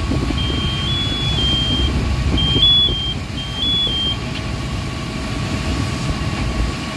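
Fire engine running as it pumps water to a hoseline: a steady low engine rumble with a thin steady high hum. Over the first four seconds a repeating electronic beep steps between two high notes.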